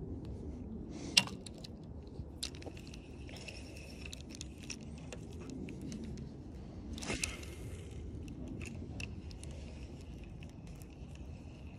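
Spinning reel and tackle being handled on an ultralight rod: scattered metallic clicks and clinks, the sharpest about a second in, with a brief swish about seven seconds in.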